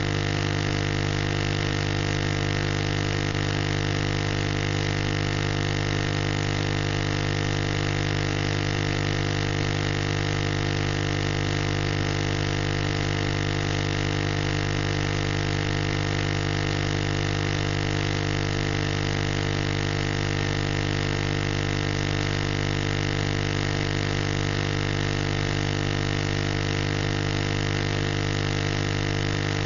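Steady buzz and hiss from the FM sound channel of a weak, distant analog TV signal picked up in TV-DX reception.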